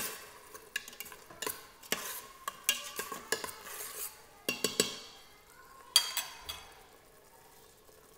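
Metal spoon stirring and scraping a thick yogurt masala in a stainless steel Instant Pot inner pot, with repeated clinks against the pot over a soft sizzle. The stirring stops about six and a half seconds in.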